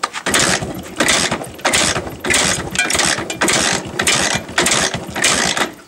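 MZ 150cc two-stroke single-cylinder motorcycle being kick-started with the choke open, turning over in a run of evenly spaced noisy strokes, about two a second, without catching: it won't start. The strokes stop suddenly near the end.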